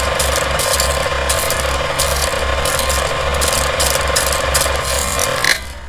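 Film projector sound effect: a rapid, rhythmic mechanical clatter with a steady hum that cuts off suddenly just before the end.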